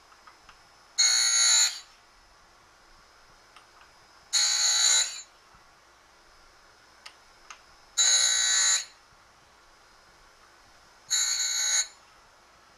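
Harig surface grinder wheel chamfering the edge of a metal plate fed past it by hand in a chamfering block: four short, high-pitched grinding screeches, each under a second and about three seconds apart, one for each pass of the edge across the wheel. Faint ticks come between the passes.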